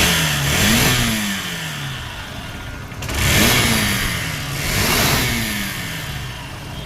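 Hero Glamour's single-cylinder engine revved up and let fall back to idle three times. It is making an abnormal noise that the mechanic presents as a problem on an almost new bike.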